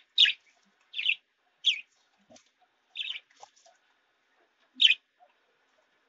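Pet budgerigars calling: five short, high, sharp chirps, four of them about a second apart, then the last after a longer pause.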